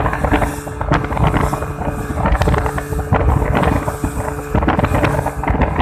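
Yamaha 200 hp outboard motor running at speed under load, towing a banana boat, with wind buffeting the microphone and the rush of water from the wake.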